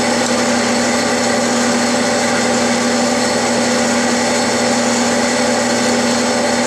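Steady hum of the Clausing lathe's motor and drive running, with an even, unchanging pitch.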